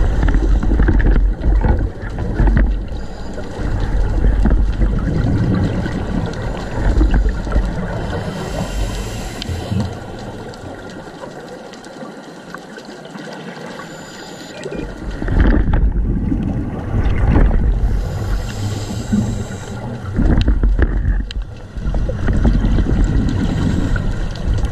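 Water rushing and sloshing around an underwater camera as it is carried along, muffled and heavy in the low end, coming in swells a few seconds long, with a quieter stretch about halfway through.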